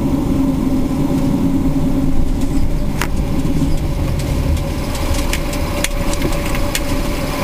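Fire engine running, heard from inside the cab while it drives and turns. There is a steady engine hum with a constant whine, the note easing after a couple of seconds, and a few sharp clicks in the second half.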